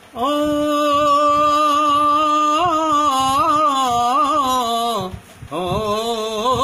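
An old man singing unaccompanied in Punjabi folk style, drawing out a long opening note for about five seconds with wavering ornaments toward its end, then, after a quick breath, a second held, wavering phrase.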